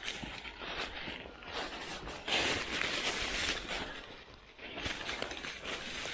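Dry fallen leaves rustling and crackling as a tracking hound pushes through the leaf litter, with footsteps through the leaves. It is irregular and loudest for about a second in the middle.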